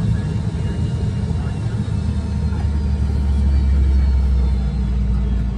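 Steady low rumble inside the cabin of an MD-88 airliner taxiing, its rear-mounted Pratt & Whitney JT8D turbofans running at low power.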